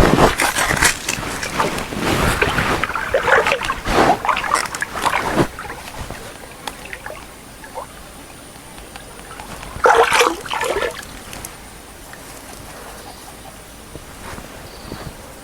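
Water sloshing and splashing in irregular bursts for the first five seconds or so, then once more briefly about ten seconds in.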